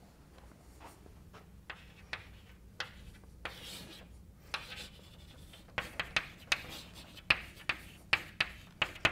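Chalk tapping and scraping on a blackboard as a line is written, with a quick run of sharp taps in the second half.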